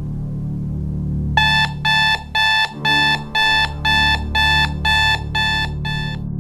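Digital alarm clock going off: about ten short, high electronic beeps, two a second, starting about a second and a half in, over a low steady drone.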